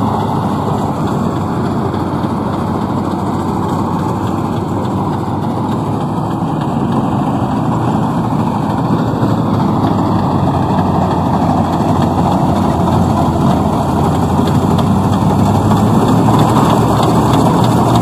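Maxxi Corn Type G crawler combine harvester running steadily as it cuts and threshes rice: a dense mechanical clatter of engine, cutter and threshing gear. It grows a little louder over the last few seconds as the machine comes close.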